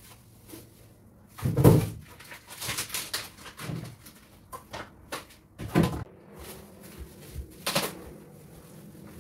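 Shopping being unpacked in a kitchen: plastic grocery bags rustling and items set down on the counter and in the fridge, with three louder bumps about two seconds, six seconds and near the end.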